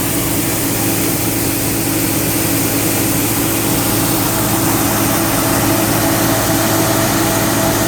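Claas Lexion 440 combine harvester running steadily, a continuous engine and machinery drone with a strong low hum. A higher steady tone joins about halfway through.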